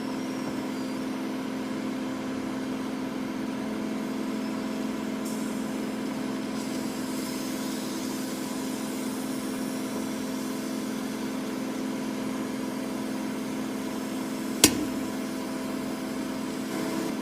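Microwave oven running with a steady hum. A single sharp pop sounds near the end.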